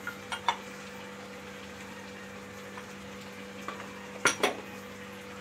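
Metal ladle clinking against a metal kadhai of simmering carrot halwa. There are a few light clinks near the start and two louder ones a little after four seconds in, over a steady faint hum.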